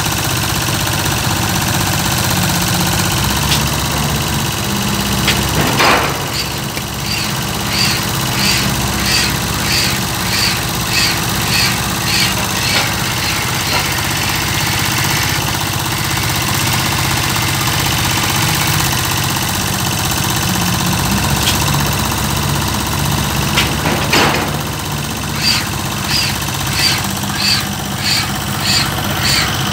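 Diesel engine of a Hitachi crawler-crane piling rig running steadily while the pile hammer drives a square concrete pile. A sharp blow about 6 seconds in starts a run of regular hammer strokes, about one and a half a second, which stops near the middle, and a second sharp blow near the end starts another run.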